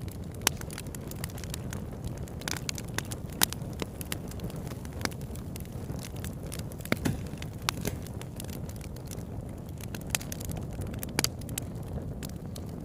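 Campfire burning: a steady low rush of flame with irregular sharp pops and crackles of burning wood, a few louder snaps among them.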